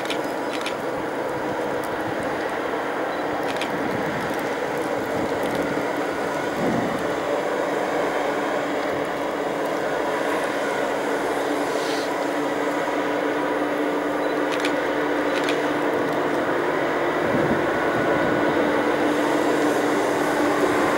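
OSE class 220 diesel-electric locomotive hauling a passenger train in on the station track, its steady engine hum slowly growing louder as it approaches, with a few faint clicks.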